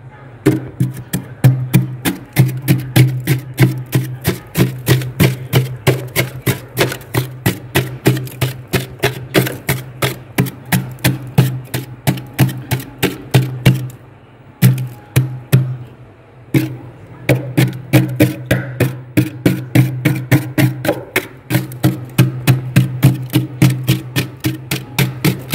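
Knife blade scraping thick, soft freezer frost in fast, even strokes, about four a second, with two short pauses around the middle.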